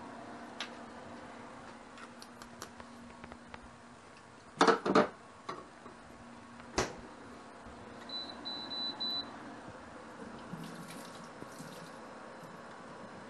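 A kitchen tap running into a stainless steel sink as a measuring cup and pot are rinsed, near the end. Earlier come a few loud knocks of kitchen items being handled, then four short high beeps.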